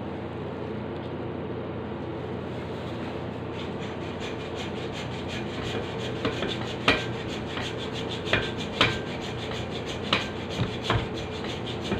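A hand saw rasps back and forth through a hard cooked block in quick, short strokes, starting a few seconds in. A few sharp knocks come along the way.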